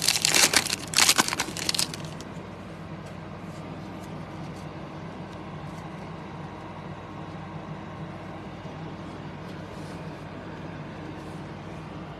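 Plastic foil wrapper of a Panini Contenders football card pack being torn open, crinkling for about two seconds. After that only a steady low hum is left.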